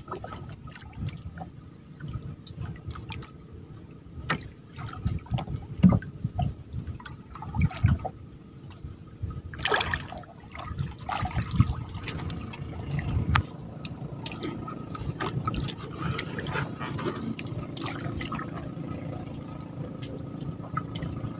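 Water sloshing and dripping around a small fishing boat, with irregular small splashes.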